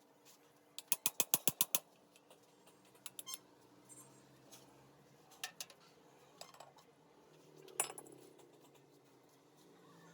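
Sharp metallic clicks from hand tools or metal parts being handled: a fast run of about eight clicks about a second in, then a few scattered clinks, the loudest near the end.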